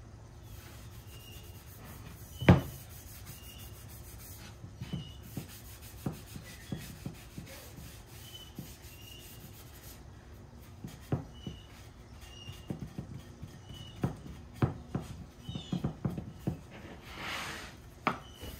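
Shop rag rubbing tung oil into a wooden mallet of purpleheart, walnut and maple, with light knocks as the mallet is turned and set down on the plywood bench. One sharp knock about two and a half seconds in is the loudest sound, and small knocks come irregularly through the rest.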